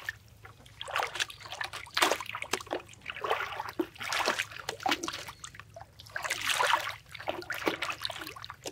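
Plastic bottle float jerking and bobbing on river water, splashing and sloshing in irregular bursts as a hooked fish tugs on the line beneath it.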